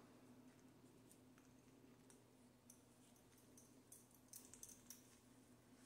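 Near silence: room tone with a faint hum, and a few faint clicks of things being handled a little past halfway.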